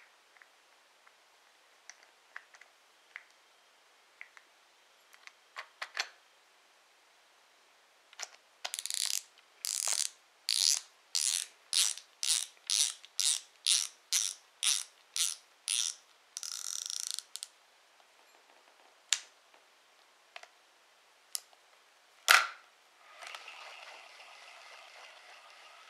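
Shimano Twin Power 4000PG spinning reel: a few light handling clicks, then the drag clicker ratcheting in a run of short bursts, about two or three a second, as the spool is turned against the drag, with one longer continuous rasp after them. After a few single louder clicks, the handle is cranked and the rotor turns with a soft steady whir near the end.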